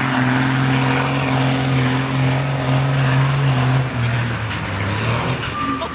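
Competition pulling tractor's diesel engine held at full throttle during a pull, a loud steady drone; about four seconds in the note drops and eases off as the pull ends.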